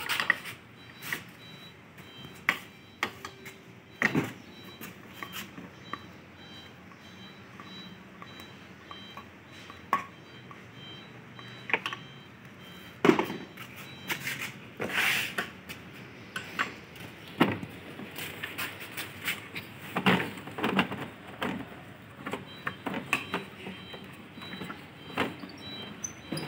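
Irregular clicks, taps and knocks of hand tools and hard plastic body panels being worked on as a scooter's front fairing is unscrewed and taken apart.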